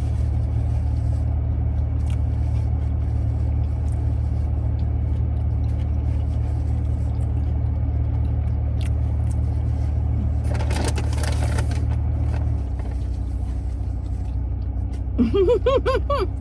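Steady low hum of a car idling, heard from inside the cabin, easing down a little about twelve seconds in. A short rustle comes around eleven seconds in, and a brief hummed voice sound near the end.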